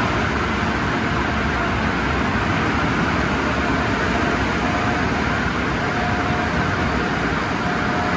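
MacNeil tunnel car wash equipment running in a steady, loud rush around a car on the conveyor.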